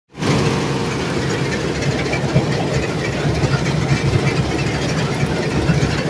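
Massey Ferguson 186 combine harvester running while cutting wheat, heard from the operator's seat: its Perkins A4.212 four-cylinder diesel runs steadily, with an uneven rattle from the working machinery over it.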